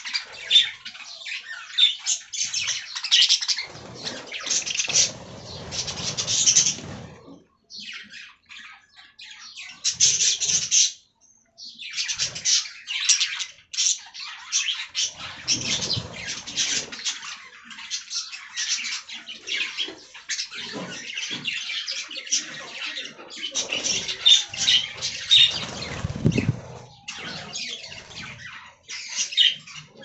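A flock of budgerigars chattering in quick, high chirps and squawks, with a couple of brief pauses.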